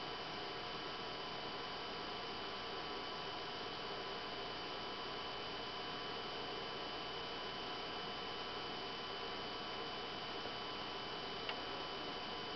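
BenQ W500 LCD projector's cooling fans running steadily: an even rushing noise with a thin, steady high whine. One small click near the end.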